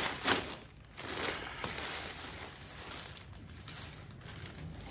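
Plastic courier mailer bag rustling and crinkling in irregular bursts as it is pulled open and clothes in plastic packets are drawn out, loudest in the first second or two.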